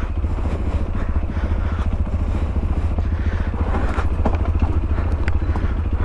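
Sinnis Terrain 125's single-cylinder four-stroke engine running steadily on a green lane, with a few light clicks and knocks about four to five seconds in.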